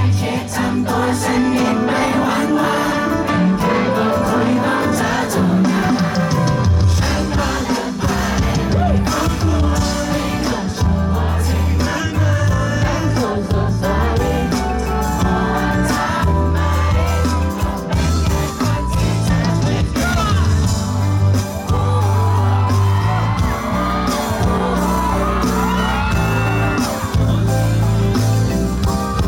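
Live pop concert: loud amplified band music with singing over a steady bass beat, with some shouts from the audience.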